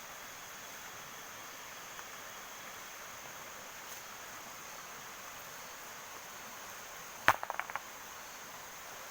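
Steady hiss of heavy rain, with a thin steady high tone above it. About seven seconds in comes one sharp snap followed by a quick run of four or five ticks.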